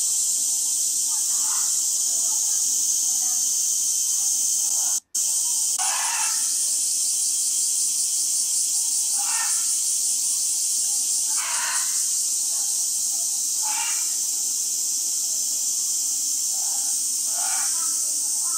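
Steady high-pitched hiss of background ambience, with a short distant call or voice every few seconds. The sound drops out for an instant about five seconds in.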